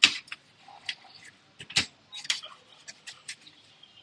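Short, irregular scrubbing and scratching strokes on a laptop's internal parts as they are cleaned with isopropyl alcohol. The sharpest strokes come right at the start and just before two seconds in.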